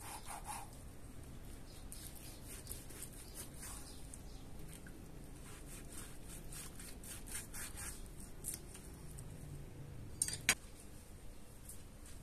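Kitchen knife slicing and scraping through raw meat on a plastic cutting board: a run of faint cutting strokes. About ten seconds in, two sharp knocks close together are the loudest sounds.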